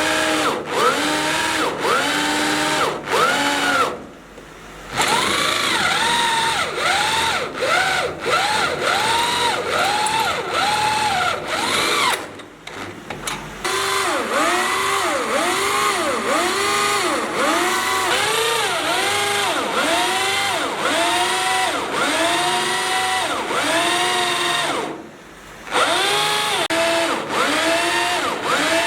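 Electric power drill boring into steel, its whine swinging up and down in pitch about one and a half times a second as the bit bites and the motor loads. It stops briefly three times, about 4, 12 and 25 seconds in, then starts again.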